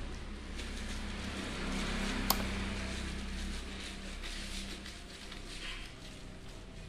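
Plastic bag of ice cubes crinkling as a Labrador licks and mouths at it, in short scattered rustles, with one sharp click about two seconds in.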